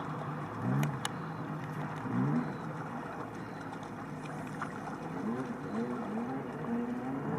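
Short, low animal calls that bend up and down in pitch, heard a few times and then in a quicker run of several near the end, over a steady background hiss.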